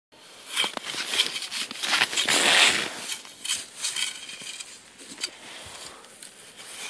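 Packed snow crunching and scraping as a child digs into a quinzhee snow shelter, with rustling of a winter jacket close by; loudest about two to three seconds in.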